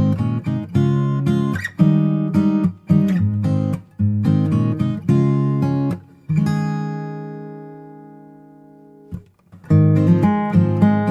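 Background music: acoustic guitar strumming chords, with one chord left to ring and die away for a few seconds before the strumming starts again.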